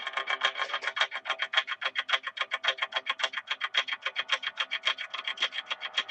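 Intro music that starts abruptly, built on a fast, even pulse of about eight strokes a second over steady pitched notes.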